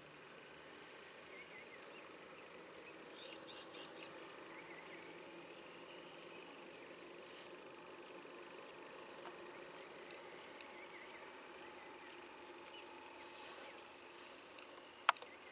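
Insects chirping in a steady high-pitched rhythm, about three chirps a second, with a single sharp click near the end.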